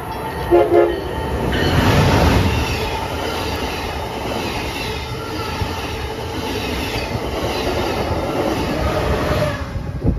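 Amtrak Acela trainset's horn sounds two short blasts about half a second in. The train then passes close by, a loud rush of wheels and air that builds within a couple of seconds, holds steady, and drops away sharply as the last car goes by near the end.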